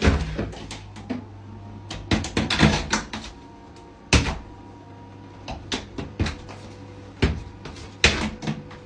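A series of sharp knocks and bangs, some in quick clusters, over a steady low hum.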